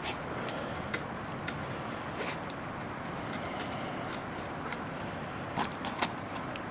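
Masking tape being peeled off a molded carbon wing root, with scattered small clicks and crackles of tape and fingertips on the composite. A couple of sharper crackles near the end as the tape comes free.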